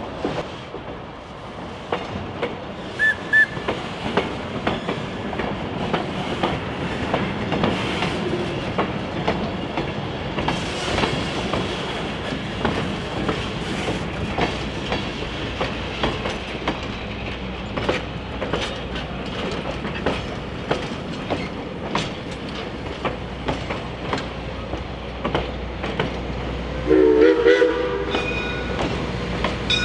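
Passenger coaches rolling slowly past on jointed track, their wheels clicking and knocking irregularly over the rail joints. Near the end a brief, loud pitched sound of several tones at once rises over the rolling.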